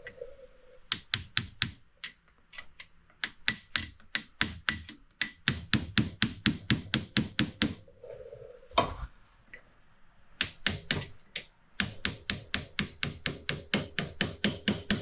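Hammer blows on metal in several quick runs of about four strikes a second, each with a bright metallic ring, with short pauses between runs. The strikes are driving out a stubborn part of an ATV's rear wheel hub and knuckle.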